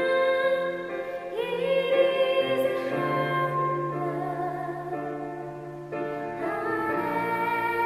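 Slow, classical-style ballad: a held melody line with vibrato over sustained accompaniment chords, the notes changing every second or two.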